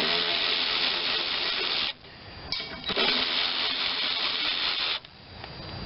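Power drill running in two bursts of about two seconds each, with a short pause between, backing out the fasteners of a small cover plate on a Tecumseh lawnmower engine.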